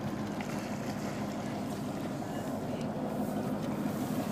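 Boat engine running steadily at idle, a constant low hum.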